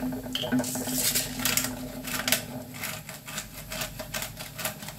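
Hand-twisted pepper grinder grinding black peppercorns: a run of quick, uneven dry clicks as the top is turned back and forth.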